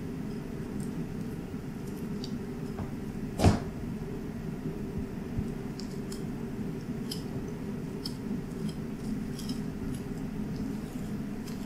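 A handmade boning knife cutting meat off a beef carcass: faint slicing and small scattered clicks of the blade along the bone, with one sharper knock about three and a half seconds in. A steady low hum runs underneath.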